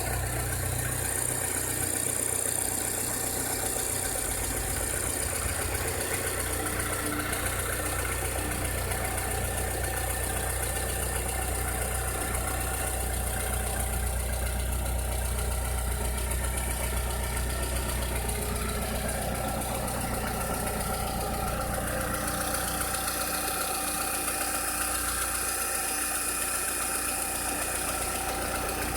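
Volkswagen SpaceFox 1.6 flex engine idling steadily, making a strange noise that the owner is trying to show.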